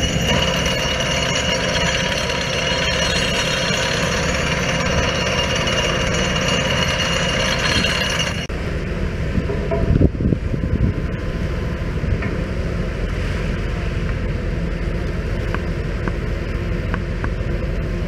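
Hydraulic vibratory pile driver clamped onto a large steel pipe pile, running with a dense, steady, rapid buzzing rattle as it vibrates the pile down. The higher part of the sound drops away about eight and a half seconds in, and there is a short loud knock about ten seconds in.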